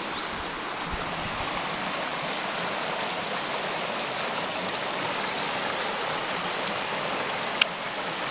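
Shallow, rocky river running over stones: a steady rush of flowing water, with a single sharp click near the end.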